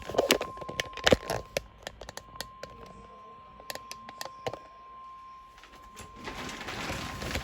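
NOAA Weather Radio 1050 Hz warning alarm tone: one steady, unbroken high beep that signals a warning bulletin is about to be read. Irregular clicks and crackles of radio static sound over it, with a burst of hiss near the end.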